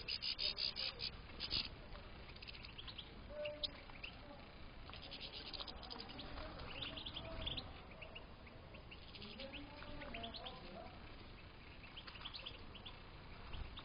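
Several European goldfinches twittering and calling, with a quick run of chirps in the first second or two and scattered calls after.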